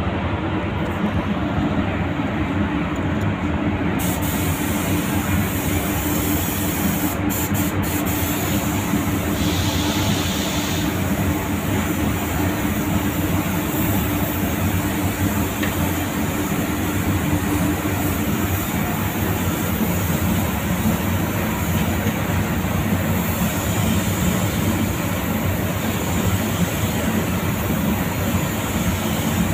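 Compressed-air gravity-feed spray gun hissing as it lays on the first, full coat of grey metallic car paint, the hiss starting about four seconds in, over a steady machine rumble.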